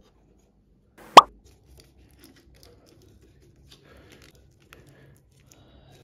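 A single short bloop sound effect about a second in, its pitch sweeping sharply upward, the kind laid in at an edit. Otherwise only faint scattered ticks and rustles.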